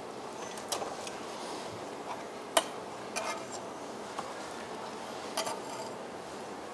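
Diced salt pork being picked up by hand and dropped into a frying pan, with scattered light taps and clicks of handling and one sharp click about two and a half seconds in.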